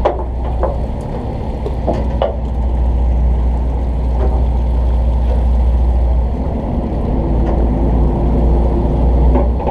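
Fishing boat's engine idling with a steady low rumble, with a few light knocks in the first couple of seconds.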